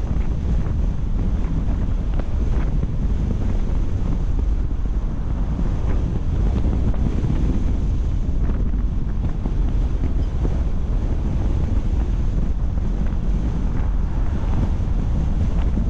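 Steady low rumble of wind buffeting the microphone of a camera on a moving car, with road noise underneath.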